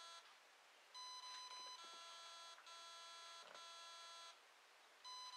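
Eachine SS Series 125A brushless ESC playing its programming-mode tones through the brushless motor: a run of steady, buzzy beeps, each under a second. The first comes about a second in, three more follow back to back at a different pitch, and after a short gap a new tone starts near the end. They mark the menu's beep sequences for the brake setting.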